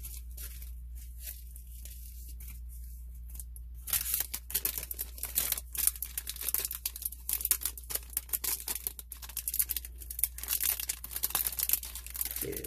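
Clear plastic packaging bag crinkling and rustling as a stack of paper tags is slid back into it. It is faint at first, then becomes a dense, rapid crackle from about four seconds in.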